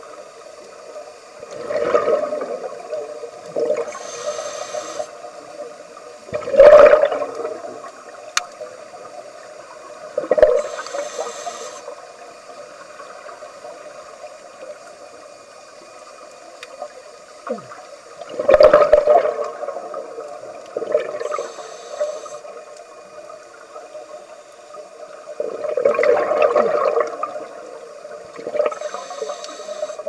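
Scuba diver breathing through a regulator underwater: about five loud bubbling rushes of exhaled air several seconds apart, with fainter hissing inhalations between them.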